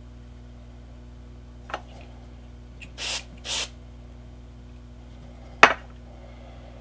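Two short spritzes from an aerosol can of super glue accelerator, half a second apart, setting the glue on a joint. A light click comes before them, and a sharp knock near the end as the can is set down on the work board.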